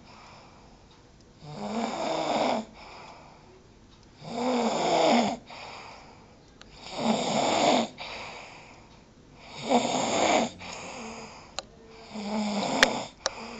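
A person snoring loudly in a steady rhythm: five loud snores on the breath in, about every two and a half seconds, each followed by a softer breath out. A few sharp clicks come near the end.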